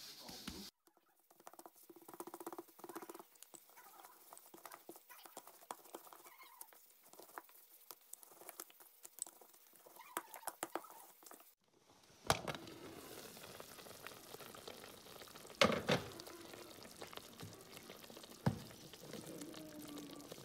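Gloved hands patting and pressing dough on a plastic cutting board, then a wooden rolling pin rolling it out: faint small taps, rustles and scrapes. From about twelve seconds in a steady hiss takes over, broken by three sharp knocks.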